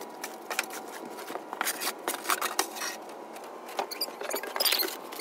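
Snow shovel scraping and knocking on a snow-covered wooden deck: irregular light scrapes and clicks.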